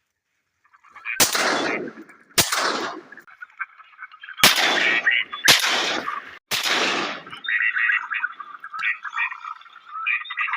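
Five shotgun shots, two about a second apart, then three in quick succession a couple of seconds later, each trailing off in a short echo.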